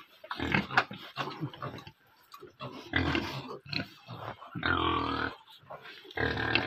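Pigs grunting in short, irregular bursts, with a longer drawn-out call about five seconds in.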